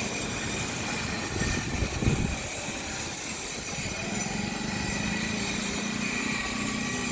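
A motor-driven machine running steadily with a low hum, with a few louder knocks about two seconds in.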